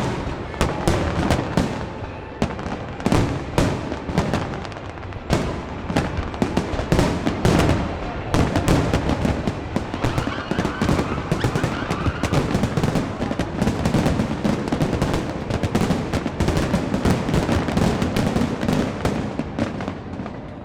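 Fireworks display: a rapid, continuous barrage of sharp bangs and crackling reports. It grows denser about halfway through and eases off near the end.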